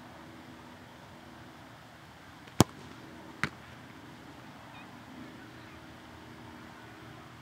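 A soccer ball kicked hard at goal with one sharp thump, followed just under a second later by a fainter thud as the ball reaches the diving goalkeeper.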